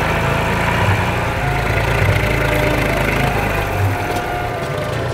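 Old tractor's diesel engine running as the tractor pulls away, a steady low chug that shifts slightly in pitch a couple of times.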